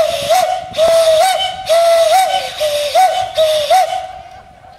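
Steam locomotive whistle blown in one long, wavering blast over the hiss of escaping steam, its pitch jumping up and back about five times; it stops a little after four seconds in.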